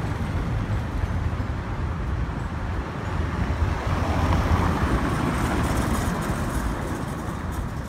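Motorcycle engine running steadily as the bike rolls slowly forward, with road and traffic noise, heard from the rider's seat as a low rumble.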